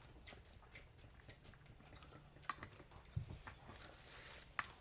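Close-miked chewing and mouth sounds from eating tacos: faint wet smacks and small clicks, with a few sharper ones in the second half.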